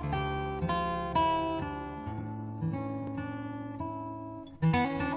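Intro music on strummed guitar, chords struck about every half second, with a louder strum near the end.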